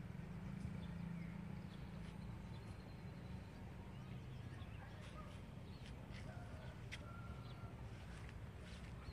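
Faint outdoor ambience: a steady low hum with scattered short clicks at irregular intervals and a few brief faint chirps.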